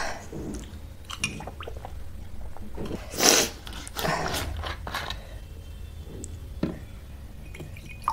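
Close-miked mouth and drinking sounds, with a loud noisy burst about three seconds in, and a few light clicks of a metal straw and cutlery against a ceramic plate.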